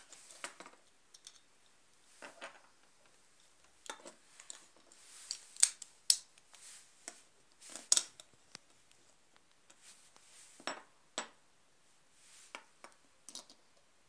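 Plastic Beyblade spinning tops being taken apart by hand: scattered sharp clicks and clacks as the layers are twisted apart and the parts are set down on a wooden floor.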